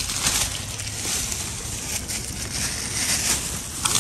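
Plastic trash bags and packaging rustling and crinkling irregularly as a gloved hand rummages through them.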